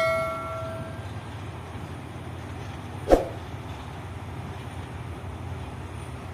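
Vintage BB 302 diesel locomotive approaching slowly with a freight train, its engine a steady low rumble, with a single sharp knock about three seconds in. A bell-like chime fades out in the first second.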